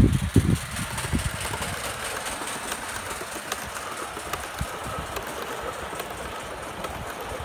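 Live-steam model locomotive running on track: heavy low thumps in the first second or so, then a steady hiss with faint scattered clicks.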